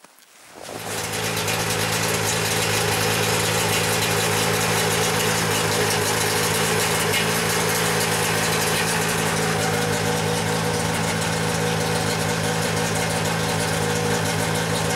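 Taiga Varyag 500 snowmobile's two-stroke engine running steadily while riding over snow. It comes in about half a second in and holds an even pitch and level.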